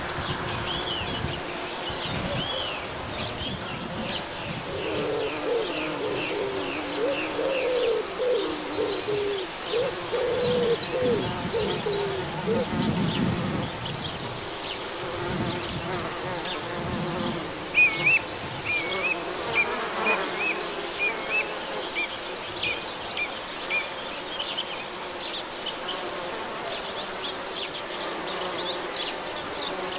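Bumblebees and honeybees buzzing as they forage on flowering phacelia, one passing close with a wavering hum from about five to thirteen seconds in. Birds chirp in the background.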